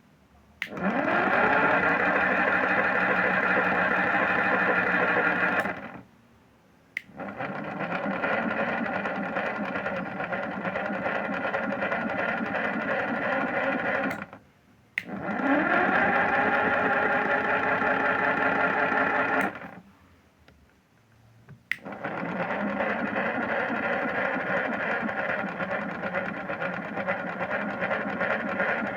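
Washing machine motor turning the drum in its wash cycle. It runs in spells of about five to seven seconds with short, nearly silent pauses between them. At the start of some spells the motor whines up in pitch and then holds steady.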